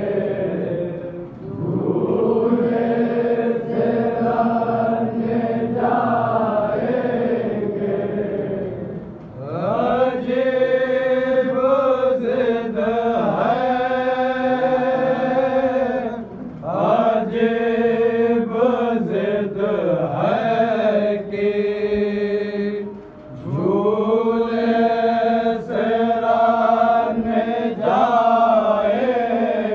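Voice chanting a noha lament in long, sustained notes that bend and waver, sung in phrases of several seconds with brief pauses between.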